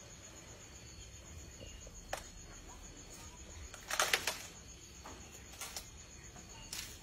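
Crickets trilling steadily, with a few sharp cracks and crunches of wood as a tusked elephant breaks at a felled tree trunk. The loudest is a cluster of cracks about four seconds in.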